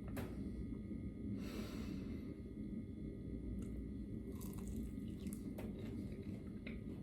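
Someone dipping and eating a piece of boneless fried chicken: a short rustle of the food or packaging, a few soft clicks, and chewing, over a steady low background hum.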